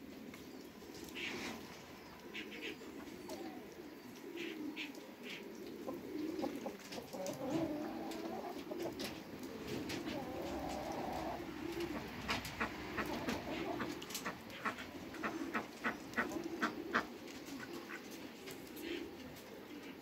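Low, coo-like domestic bird calls going on throughout, with a quick series of sharp clicks in the second half.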